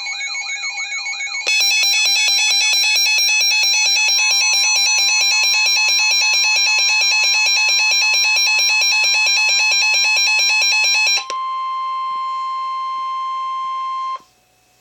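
Emergency alert tones on a NOAA Weather Radio warning: a loud electronic warbling alarm that turns denser and louder after about a second and a half, joined about four seconds in by the steady single-pitch Weather Radio warning tone. The warbling stops about eleven seconds in, and the warning tone runs on alone for about three seconds before cutting off suddenly.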